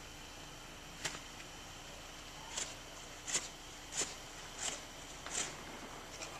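Footsteps crunching through snow: a single step about a second in, then five steps in an even walking rhythm, about one every 0.7 seconds.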